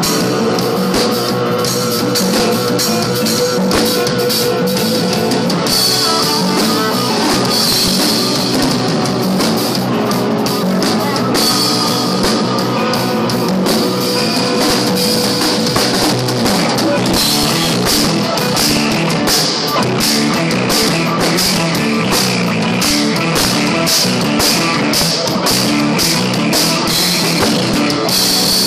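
A drum kit played in a busy rock groove with lots of cymbal work, over electric guitar, without a break.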